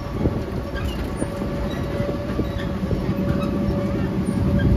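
Miniature zoo train running, heard from aboard: a steady low rumble with a thin steady whine and scattered light knocks, slowly getting louder.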